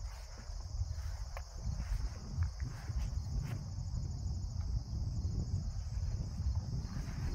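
A steady, high insect chorus over a low wind rumble on the microphone, with a few light knocks.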